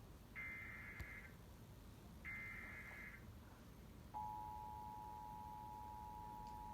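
Emergency Alert System tones announcing a severe thunderstorm warning. Two short screeching SAME digital header bursts come about a second apart. About four seconds in, the steady two-tone EAS attention signal starts and holds.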